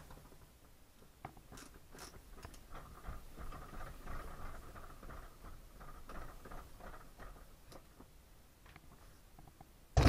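Phillips screwdriver turning a screw through a caster wheel into a shop vac's plastic base: faint, irregular ticks and creaks of the screw being driven in, with a thump right at the end.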